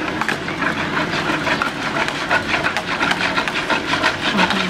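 Wire whisk beating a milk mixture in a plastic basin: a fast, even clatter of about five strokes a second.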